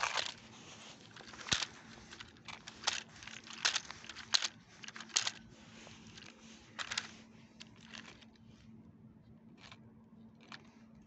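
Irregular crackling and rustling noises, one or two a second and growing sparse near the end, over a faint steady hum.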